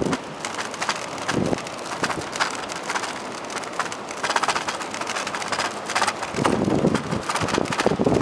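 Bicycle rattling as its tyres roll over wooden boardwalk planks, a quick uneven clatter of knocks. Wind buffets the microphone, louder from about six seconds in.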